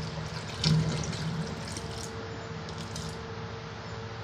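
Rinse water being poured off a steel bowl of washed rice into a steel sink, trickling and splashing down the drain, briefly louder a little under a second in.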